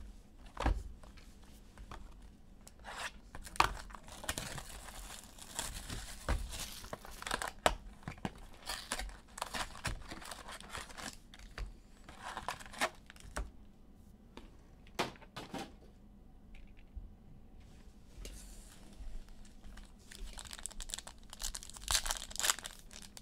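The packaging of a box of basketball trading cards being torn open and crumpled by hand, in a run of rips, crinkles and small handling clicks that thins out briefly past the middle.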